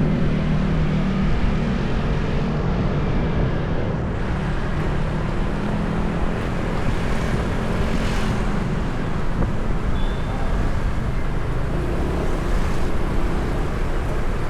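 Steady road traffic noise on a city street, with a vehicle engine's low hum that is strongest in the first second or so.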